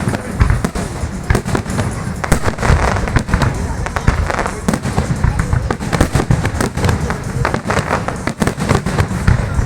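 Fireworks display: shells bursting in a rapid, irregular barrage of bangs and cracks, many a second, with no break.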